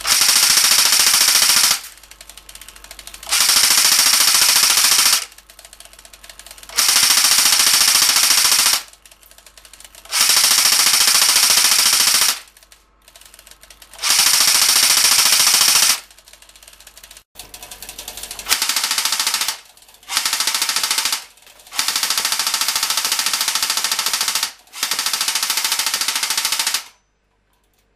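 Prototype Shoei MG42 airsoft electric gun with a high-cycle motor firing full-auto bursts at a very fast rate. There are about nine bursts, each one to two and a half seconds long, with short pauses between them.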